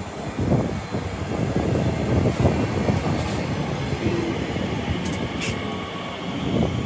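A train running past, a steady rumble of wheels on rails with many short knocks.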